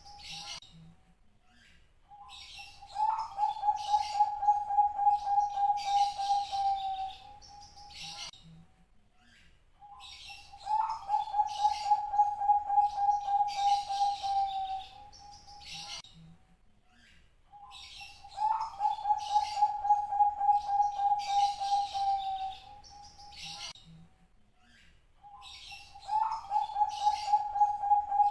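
Zebra dove (Bangkok-type perkutut) cooing: four song phrases about every seven and a half seconds, each opening with a short rising note and running into a long, rapidly pulsed coo of about four seconds. Higher chirps sound between and over the phrases.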